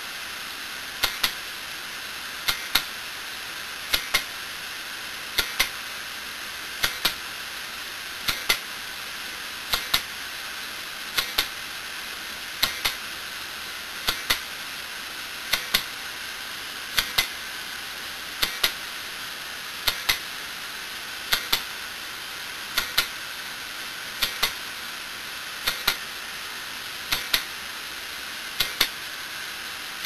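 Failing IDE hard disk drive clicking: a pair of sharp clicks about every second and a half over a steady hiss. Each click is the read/write head crashing and bouncing into the center, the sign of mechanical failure in the drive.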